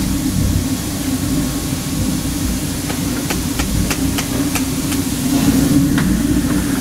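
Steam locomotive and its freight train rolling slowly past at track level with a steady low rumble, and a run of sharp metallic clicks from the wheels and running gear about halfway through, then one more near the end.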